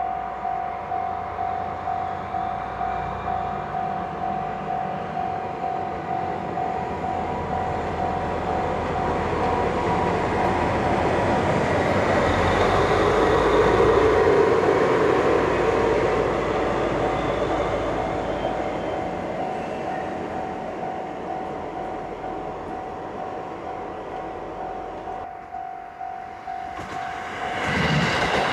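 Japanese railway level-crossing warning bell dinging in an even, steady rhythm while a train runs past. The train's rumble swells to a peak about halfway and then fades. The bell cuts off near the end, just as louder train noise comes in.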